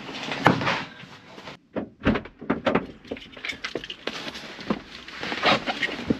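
A heavy bag set down in a van's load area with a thump, then a run of short knocks, clunks and clothing rustle as a person climbs into the van's driver's seat.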